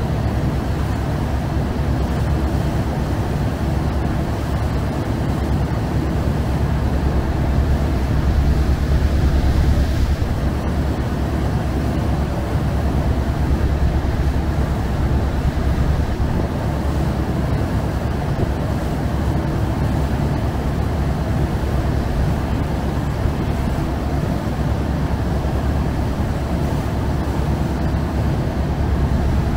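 Chao Phraya express boat's diesel engine running steadily under way, a low drone, with water rushing and splashing past the hull.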